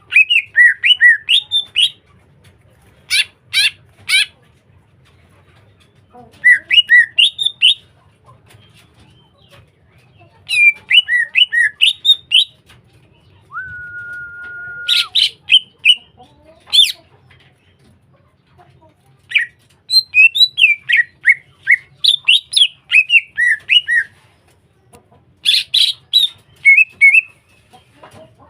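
Cucak hijau (green leafbird) singing in repeated bursts of rapid, chattering whistled notes with sharp chips between them, and one long even whistle near the middle.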